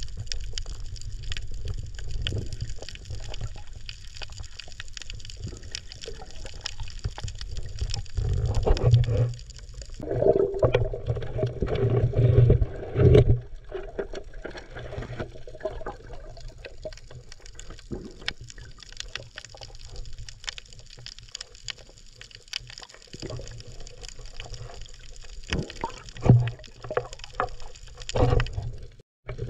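Muffled underwater water noise picked up through a camera's waterproof housing as a spearfisher swims over a shallow reef: a steady low rumble with scattered clicks and knocks, and louder surging sounds from about eight to thirteen seconds in.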